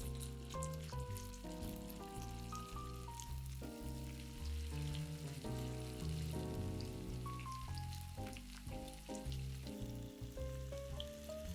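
Food frying in oil in a pan, a steady sizzle with fine crackles, under background music playing a melody.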